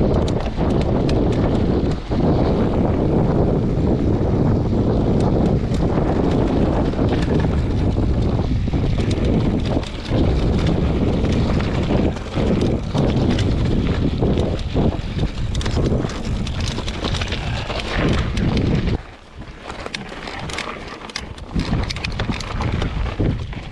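Wind buffeting the camera microphone while a mountain bike is ridden fast over a rough trail, with rattles and knocks from the bike over bumps. The wind noise eases about nineteen seconds in.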